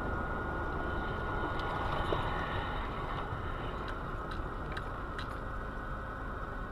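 Steady road and engine noise inside a car driving on a snowy road, heard through a dashcam's microphone, with a few faint clicks.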